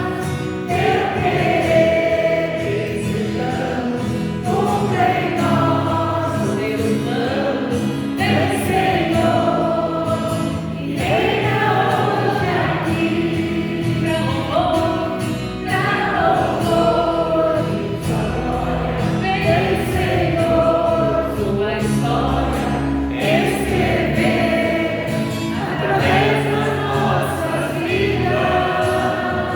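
Christian worship song: a group of voices singing together in sustained melodic lines over steady instrumental accompaniment.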